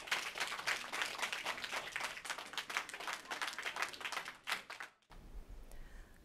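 Audience applauding, dense clapping that cuts off suddenly about five seconds in.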